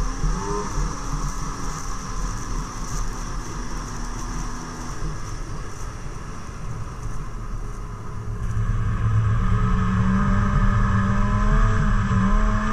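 Snowmobile engine running while riding along a snow trail, getting louder about two-thirds of the way through.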